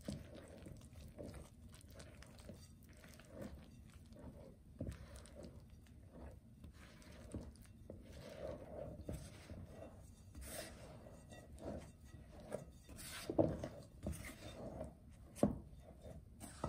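Silicone spatula stirring and folding a wet, shaggy bread dough in a glass mixing bowl: faint, irregular squelches and scrapes, with a few louder strokes in the second half.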